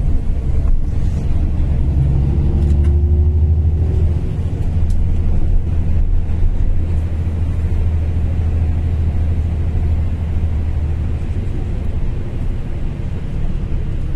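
Bus engine and tyre rumble heard from inside the moving bus: a deep, steady drone. The engine note rises briefly a couple of seconds in, and the low rumble eases off near the end.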